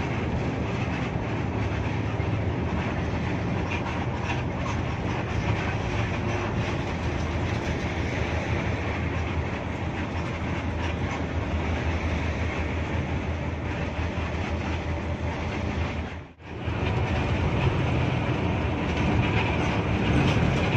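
Steady cabin drone of a Hino RK8 R260 coach cruising on a highway: diesel engine hum mixed with tyre and road rumble. The sound cuts out for an instant about sixteen seconds in.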